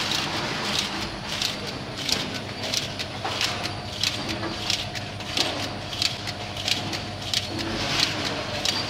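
Shrink-sleeve labeling machine running, with a short hiss about every two-thirds of a second (90 per minute), one for each sleeve cut and placed on a tin, over a steady motor hum. A faint steady whine joins about three seconds in.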